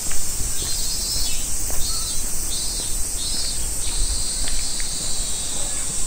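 Insects chirring: a continuous high-pitched trill with shorter pulsing calls repeating over it, and a low rumble underneath.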